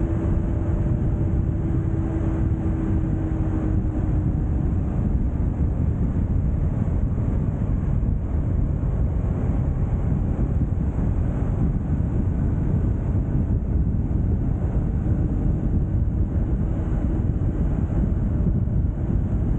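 Steady wind rushing over the microphone with road noise while travelling along a highway, and a faint hum that slowly drops in pitch over the first few seconds and comes back faintly near the end.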